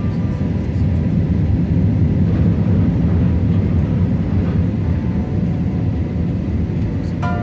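Steady cabin rumble of an Airbus A321-211 on approach to landing, heard from inside the cabin: the CFM56 turbofan engines and the rush of air over the fuselage. The low roar holds an even level throughout.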